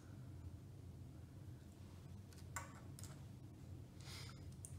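Faint clicks of small LEGO plastic pieces being handled and pressed together, a few of them in the second half, over a low steady hum.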